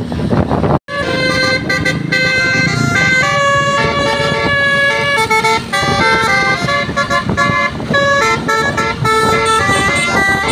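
Bus telolet horn (Basuri multi-tone air horn) playing a tune of held notes that jump up and down in pitch, starting about a second in after a brief cut-out in the sound.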